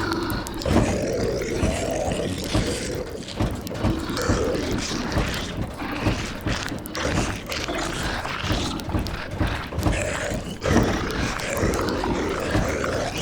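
Zombie moans and growls, human voices imitating the undead, rising and falling in overlapping swells, with many small clicks and crackles under them.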